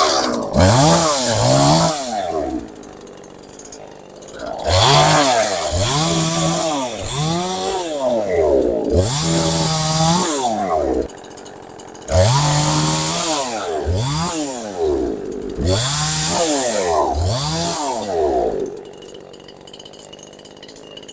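Knockoff two-stroke chainsaw revved up and down over and over in short bursts, held at full speed for a second or more at a time as it cuts into wood. It drops back to a low idle near the end.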